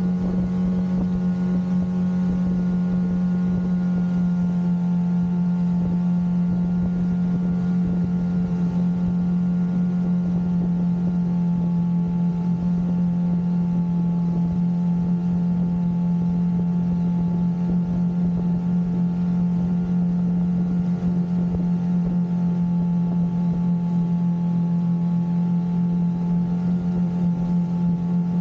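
Twin outboard motors running steadily at cruising speed, an unchanging engine drone, with the rush of water from the wake behind.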